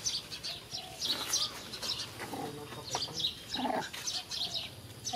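Small birds chirping repeatedly, quick short high chirps, with a few faint indistinct lower sounds.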